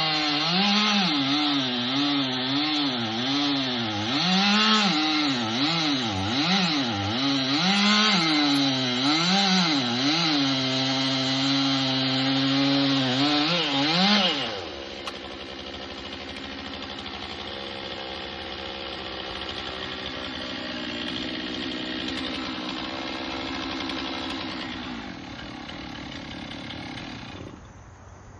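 Chainsaw cutting wood, its engine note repeatedly dipping and rising as it bogs under load and speeds up again. About halfway through it drops to a quieter, steady running note that fades near the end.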